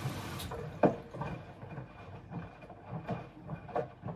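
Bosch Serie 4 washing machine on its wash cycle: the drum turning with wet clothes sloshing and a detergent pot clonking around inside, in a run of irregular knocks and splashes, the loudest a little under a second in. Hardly any motor noise; the load is light, which lets the pot knock about.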